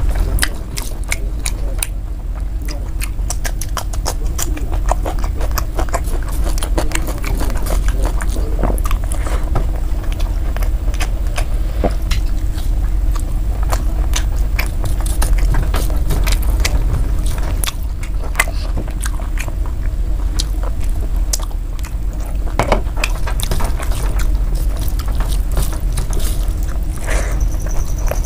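A person eating rice and mutton curry by hand: wet chewing and lip smacks with many short clicks, and fingers mixing and scraping food on the plate, over a steady low rumble.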